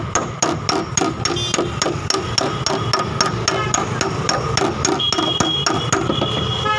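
Rapid light hammer taps on a car's sheet-metal quarter panel, about five a second: the tapping of paintless dent repair as a dent is worked out.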